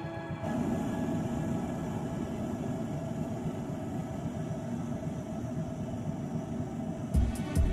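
Steady street background noise with a low rumble, heard while the music drops out; music with a beat comes back in near the end.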